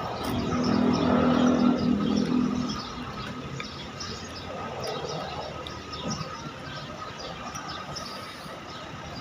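A motor vehicle passing, its engine hum swelling and fading over the first few seconds, with birds chirping throughout.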